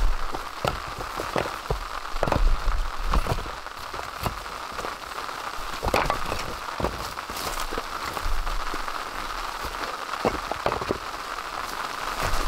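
Split firewood being stacked, pieces of dry wood knocking and clacking as each is set on the pile, about a dozen irregular knocks with the loudest about two and six seconds in. Under them, steady rain on the tarp overhead.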